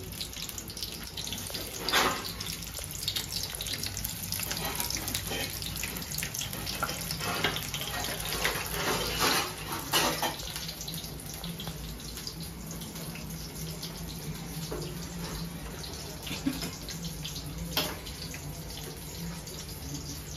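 Sliced onions sizzling and crackling in hot oil in a steel kadai, with a few sharp clinks or knocks about two seconds in, around the middle and near the end.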